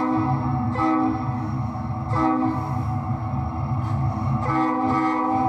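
Diesel locomotive sound from an HO scale model train: a multi-chime horn sounds four blasts, the last the longest, over a steady low engine rumble.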